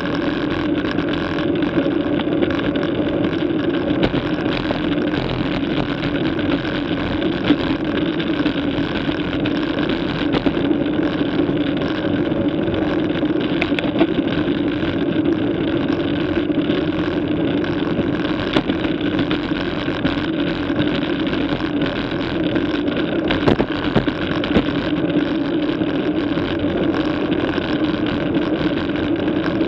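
Steady rush of wind and tyre noise from a bicycle riding on smooth asphalt at about 30 km/h, with a constant low hum and a few faint ticks.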